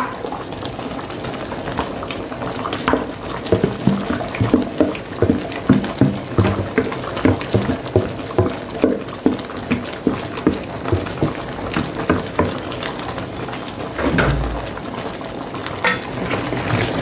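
A pot of curry cow foot simmering and bubbling as chopped seasonings are tipped in from a plastic bowl, with soft knocks about twice a second through the middle. A dull thump comes a few seconds before the end, then a wooden spoon starts stirring in the pot.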